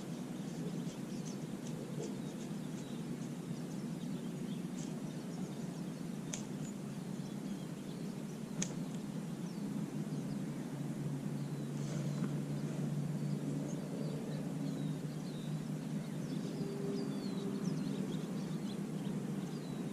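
Small birds chirping over a steady low outdoor background noise, with two sharp faint ticks midway.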